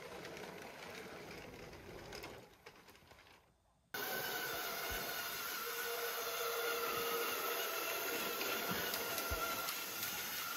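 LEGO train motor whirring with a steady high whine, coming in suddenly about four seconds in, with a couple of soft knocks. Before it, faint rustling and clicks of the plastic LEGO model being handled.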